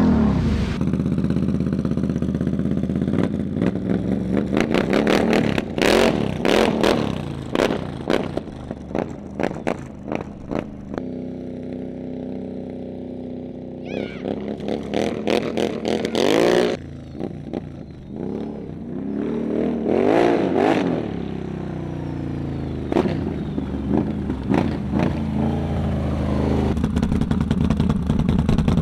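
Can-Am Renegade 1000's V-twin engine breathing through an SLG Welding aftermarket exhaust with a deep note. It is heard across several cut-together clips: many quick throttle blips first, then a steady idle, then revving that rises and falls, and a steady idle again near the end.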